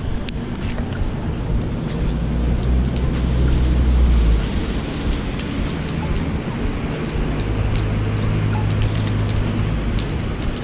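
Steady rain falling on wet pavement, with scattered drops ticking close by. Under it runs a low hum that changes pitch a few times.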